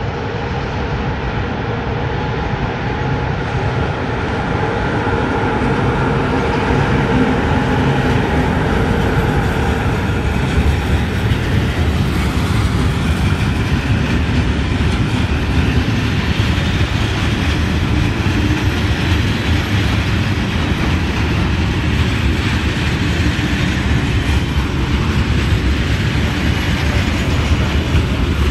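Electric freight train passing close by: the locomotive's steady hum in the first several seconds, then a long rake of covered wagons rumbling past with wheels clattering over the rail joints.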